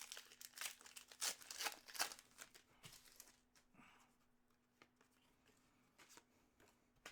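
Faint rustling, crinkling and tearing of Upper Deck hockey card pack wrappers and cards being handled, busiest in the first three seconds, then thinning to a few scattered light ticks over a faint steady hum.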